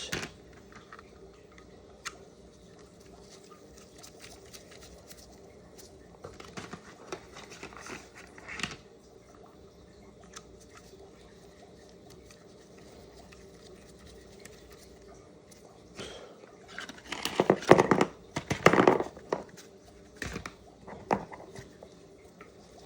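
Handling noises as antennas are screwed onto a wireless video transmitter and receiver: light rustles and small clicks over a faint steady hum, with a louder run of rustling about three quarters of the way through.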